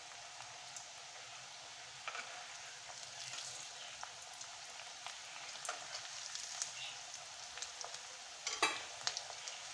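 Onion pakoras deep-frying in hot oil in an iron kadai: a steady sizzle, broken by scattered clicks and scrapes of a metal spatula against the pan as the fritters are turned. The loudest scrape comes near the end.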